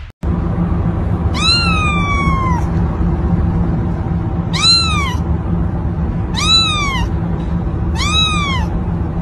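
Young kitten meowing four times, high-pitched calls that each rise and then fall in pitch, the first one the longest. A steady low hum runs underneath.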